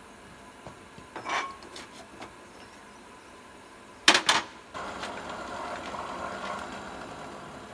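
Two sharp metal clanks about four seconds in as steel tongs are laid on the forge's metal top. Then a hand-cranked forge blower starts whirring steadily, pushing air into the charcoal fire.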